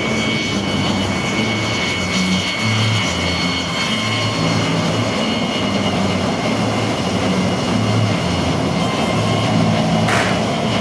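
EA-6B Prowler's twin J52 turbojet engines running on a carrier flight deck: a steady loud roar with a high whine over it. A short burst of rushing noise comes near the end.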